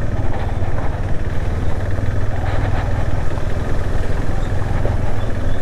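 Motorcycle engine running steadily with a low, even drone.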